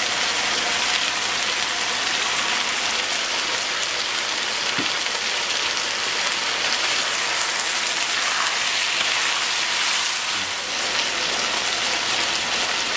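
Chicken, chicken liver and mushroom stir-fry sizzling steadily in a nonstick frying pan on an electric coil burner.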